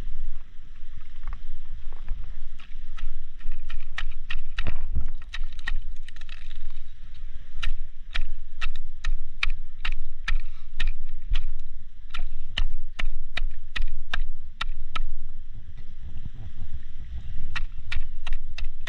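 Underwater sound on a reef, picked up by a submerged camera: a steady low rumble of water movement, with many sharp, irregular clicks, several a second through the middle.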